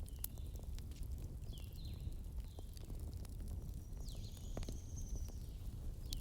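Bonfire crackling, with scattered sharp pops over a low steady rumble. Birds chirp a few short high notes, with a longer high note about four seconds in.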